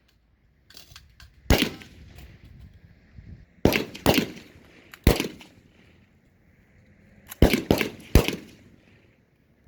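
M4 carbine, a 5.56 mm rifle, fired in single shots at an uneven pace: one shot, then three over about a second and a half, then three quick ones near the end, each with a short echoing tail. A few fainter pops sound early on.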